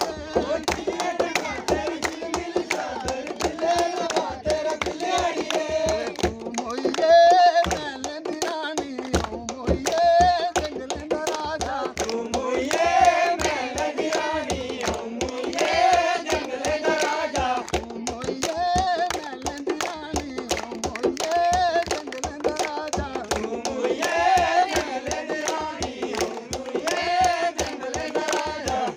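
Men singing a Dogri folk song together, keeping time with steady hand clapping.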